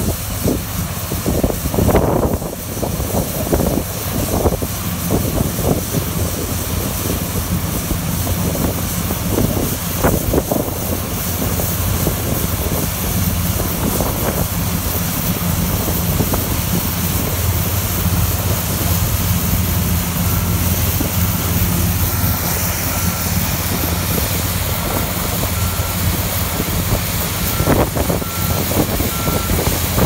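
1960 English-built Allis-Chalmers Gleaner EA combine harvester running steadily while cutting and threshing wheat, its engine and threshing machinery giving a constant low running sound. About two-thirds of the way in, an evenly spaced beeping starts and keeps going.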